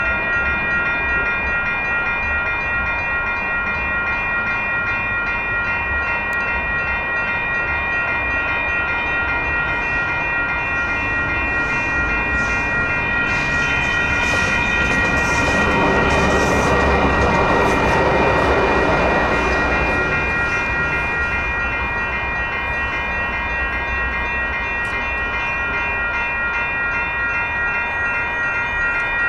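Railroad crossing signal bells ringing steadily and without a break. About halfway through, a light rail train passes through the crossing: its rumble swells up over the bells and fades away again.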